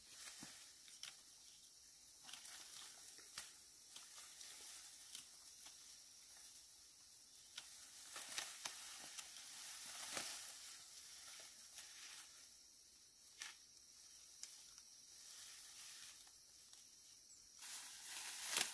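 Ripe upland rice plants rustling with short dry crackles as the stalks are pushed through and gathered by hand, over a steady high hiss. The rustling grows louder about halfway through and again near the end.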